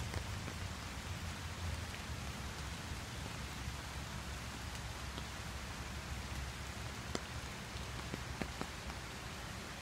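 Steady rain falling on a creek's surface and on an umbrella overhead, with a few sharper drop ticks near the end.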